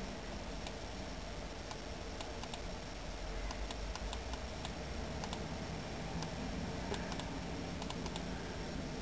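Scattered light clicks from operating a computer's controls, irregular and several a second at times, over a steady low hum.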